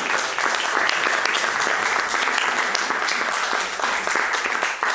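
Small audience applauding steadily.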